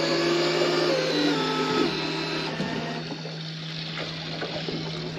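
Motor of a Piscifun Kraken deep-drop fishing reel whining as it winds in line with a fish on, stepping down in pitch about a second in and fading after about two seconds, over a steady low hum.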